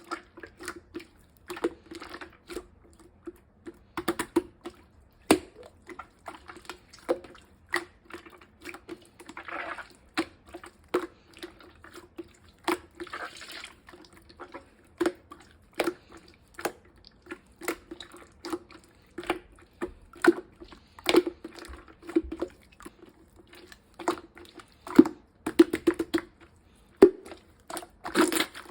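Sticky slime being squeezed, stretched and pressed by hand, giving a dense run of irregular wet clicks, crackles and small pops.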